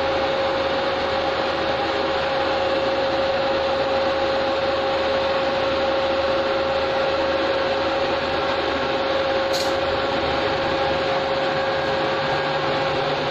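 Steady machinery hum and hiss in an electric local train's driving cab, with a single held mid-pitched tone over it. One sharp click about nine and a half seconds in.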